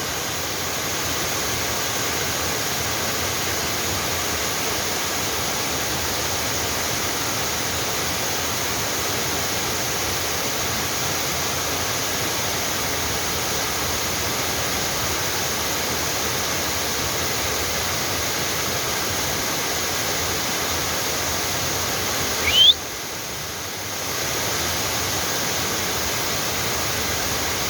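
Steady rushing of a waterfall. About 22 seconds in, a short, loud, rising squeal; the rushing then drops away for a second or so and comes back.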